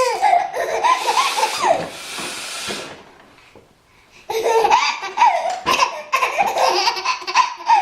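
Baby laughing in loud bursts, falling quiet for about a second around three seconds in, then laughing hard again.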